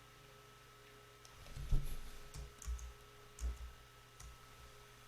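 A few faint, scattered clicks and soft low thumps of a computer mouse and keyboard being worked at a desk, over a steady low electrical hum.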